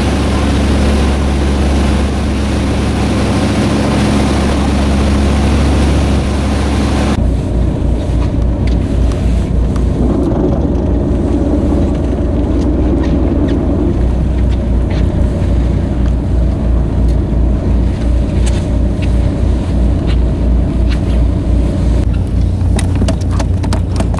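Tour boat's engine running, heard from on board: first a steady hum under wind and water noise, then, after a cut about seven seconds in, a low, even throb. A few clicks come near the end.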